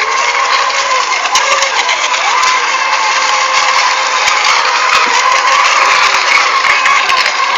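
Several FSR-E class electric-powered racing model boats running at speed at once: a steady motor whine with slight rises and falls in pitch over a rush of spray.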